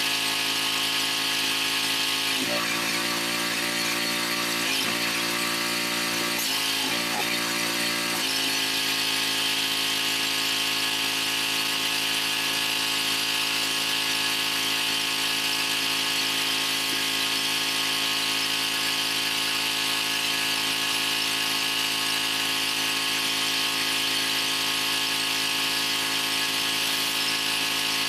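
Pressure washer running continuously while its rotary surface cleaner sprays over wet pavers, a steady machine drone with a constant hiss of water. Its tone changes for several seconds starting about two seconds in, then settles back.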